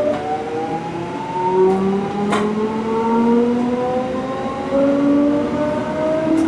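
DB class 425 electric multiple unit accelerating, its traction inverters and motors whining in several tones that climb steadily in pitch, over the rumble of the wheels, heard from the driver's cab. A single sharp click comes about two and a half seconds in.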